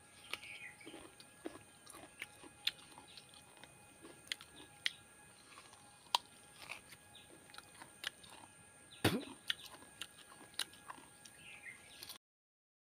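A person biting and chewing fresh coconut flesh close to the microphone, with irregular crisp crunches, the loudest about nine seconds in. The sound cuts out completely for a moment just before the end.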